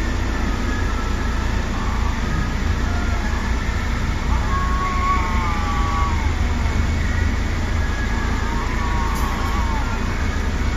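Stray domestic cats in a standoff, giving several drawn-out, wavering yowls, the clearest about halfway through and again near the end. Under them runs a loud, steady low rumble of idling bus engines.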